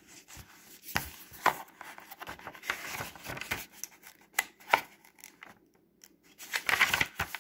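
A picture book being opened and its pages handled and turned: irregular paper rustling and crinkling, with a few sharp clicks and soft knocks.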